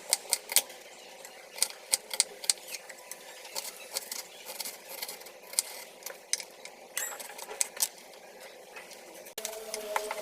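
Kitchen knife cutting red onion on a cutting board: irregular sharp taps, a few a second, with a short scrape about seven seconds in.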